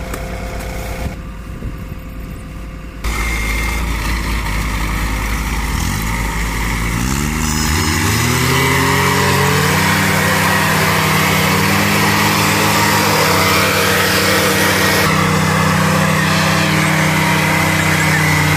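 Heavy diesel engines of a backhoe loader and a tractor running under load as the loader works to free the mud-stuck tractor. The revs rise steeply about seven seconds in and are then held high and steady.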